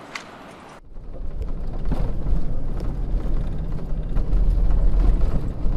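A vehicle driving along a rough dirt track: a loud, low, steady rumble with scattered knocks and rattles that starts abruptly about a second in, after a quieter stretch.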